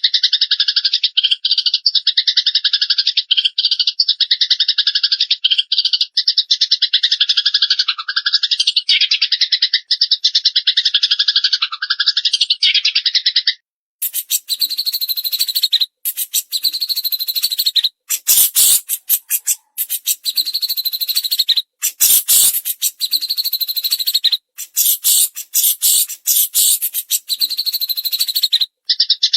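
Recorded songbird chatter of a cililin and a fighting Eurasian tree sparrow: a dense, rapid, high-pitched trilling song for about the first half, then a different, harsher and hissier chatter with sharp clicks, switching back to the first song right at the end.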